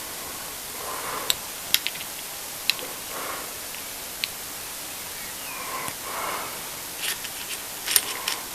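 Light metallic clicks and taps from a chisel being handled and adjusted in a honing guide, with soft breaths over a steady hiss. A few single clicks come early, then a quick run of clicks near the end.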